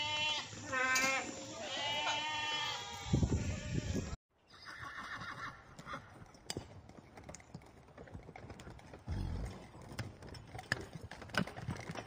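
A goat bleating, three quavering cries in the first three seconds, followed by a short low rumble. After a sudden break, a quieter stretch follows with scattered clicks and rustling from grazing horses.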